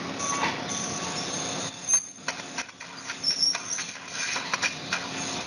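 Operating-room sound from an inferior facetectomy with an ultrasonic bone scalpel: a steady hiss with a low hum under it, and scattered short high squeals and clicks.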